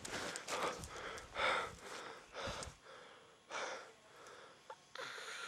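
A person panting heavily while running, breaths coming about every half second to a second, with footsteps on the forest floor.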